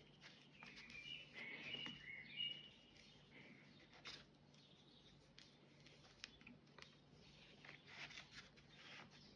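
Near silence: faint rustling and soft clicks of thick cotton macramé cord being handled and knots pulled tight, with a few short high chirps between about one and two and a half seconds in.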